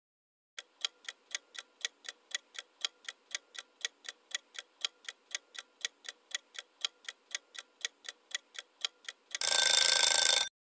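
Countdown-timer sound effect: a clock ticking evenly, about four ticks a second, then a short alarm ringing for about a second near the end to mark that the answer time is up.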